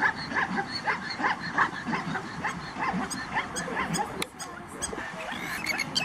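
Plains zebras barking: a rapid series of short, yelping calls, several a second, with a few sharp clicks in the second half.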